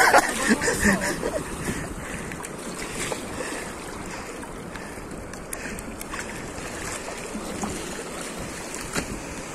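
Water washing steadily around a small fishing boat, with wind on the microphone and an occasional faint knock.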